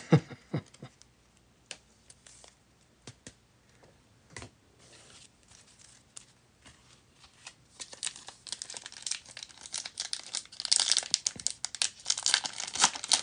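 A trading-card pack's wrapper being torn open and crinkled by hand: dense crackling that starts about two-thirds of the way in and is busiest near the end. Before that come a few scattered light clicks and taps.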